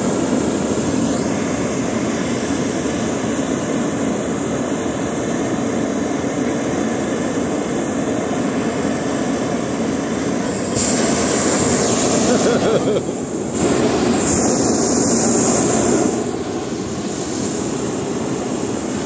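Hot air balloon's twin propane burner firing in a long, steady blast. It grows louder and hissier about two-thirds of the way through, dips for a moment, surges again, then settles back.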